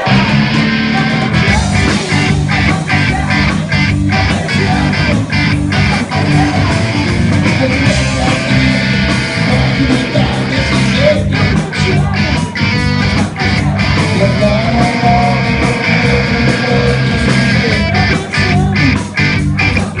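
Live rock band playing a blues, loud, with electric guitar over a steady bass line and drum hits.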